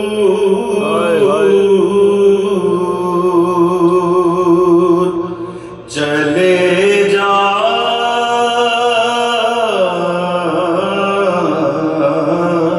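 Unaccompanied male voices singing a soz, a Shia lament for Ali Asghar: a lead reciter holds long, wavering notes while other men hold steady notes beneath him. The singing breaks off briefly about six seconds in, then resumes.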